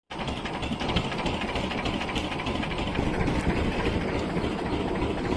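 Motorised fishing boat's engine running steadily with a dense low rumble.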